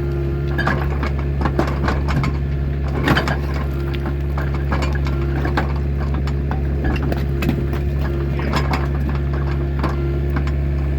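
Excavator engine running steadily, with irregular knocks and clanks of steel against rock scattered through it.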